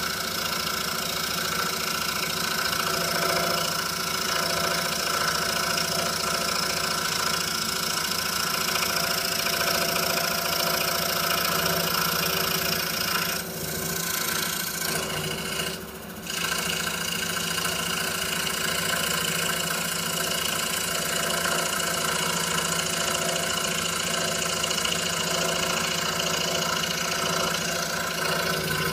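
A 26-inch RBI Hawk scroll saw running steadily, its 5-0 skip-tooth blade cutting Baltic birch plywood. The sound dips briefly twice, about halfway through.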